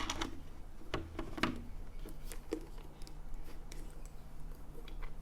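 Toy plastic hand-crank slime mixer being turned, stirring glue, water and food colouring, with a run of irregular light clicks and ticks.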